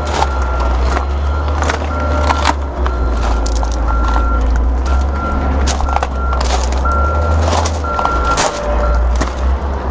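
Backup alarm on a vehicle reversing, beeping at one steady pitch about once a second, over a constant low rumble and scattered clicks.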